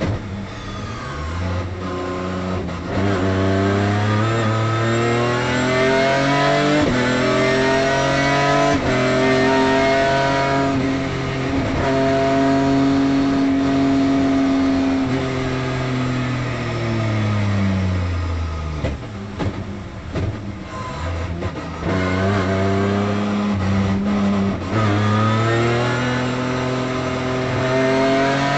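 Race car engine heard from inside the cockpit, revving up through the gears with each shift pulling the pitch back down. About halfway through, the engine note sinks steadily for several seconds as the car slows, then climbs again through the gears near the end.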